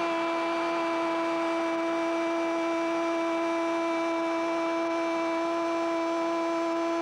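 Football TV commentator's goal call, the "gol" held as one long unbroken note at a steady pitch, over the noise of the stadium crowd.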